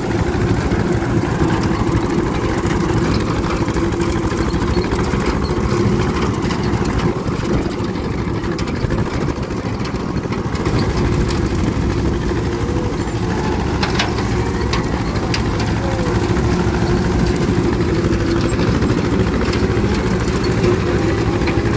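A 1953 John Deere 40 tractor's two-cylinder engine running steadily under load while it drives a rotary cutter (bush hog) through tall grass, the cutter's blades turning and chopping the grass, with a few sharp ticks along the way.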